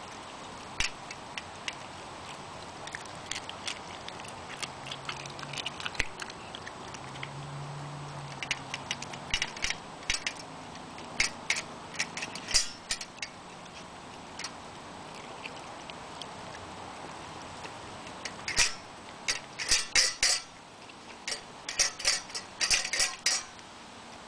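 Samoyed puppy eating raw food from a stainless steel bowl in a wire stand: irregular sharp clicks and clinks of the metal bowl knocking against the stand as she noses and licks at it. The clinks come in denser flurries toward the end as the bowl is licked empty.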